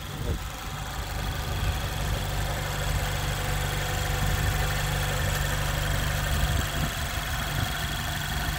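Mazda Miata's Skyactiv-G four-cylinder engine idling steadily, just after an oil change.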